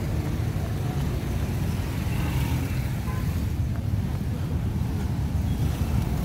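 Steady low rumble of road traffic on a busy city street, with no single vehicle standing out.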